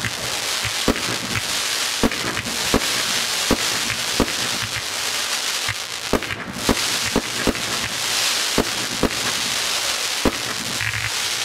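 Aerial fireworks going off in a steady run of sharp bangs, roughly one or two a second, over a continuous crackling hiss from glittering stars.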